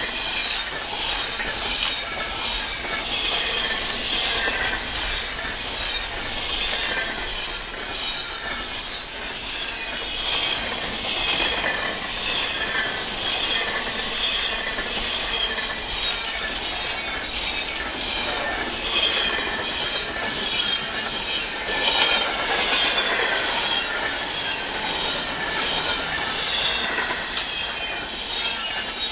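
Freight train cars rolling past, their steel wheels squealing against the rails in repeated high-pitched screeches over a steady rolling noise.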